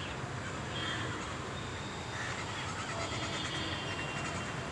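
Steady outdoor background noise, with faint high-pitched chirping calls coming and going.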